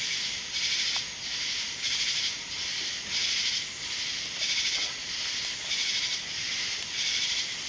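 Night insects calling in a steady, evenly pulsing chorus, swelling a little under twice a second.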